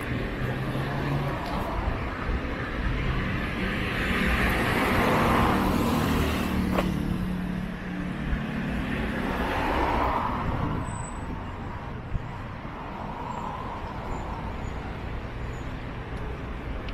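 Road traffic: cars driving past on the street alongside, a steady rush that swells as vehicles pass about four to six seconds in and again around ten seconds.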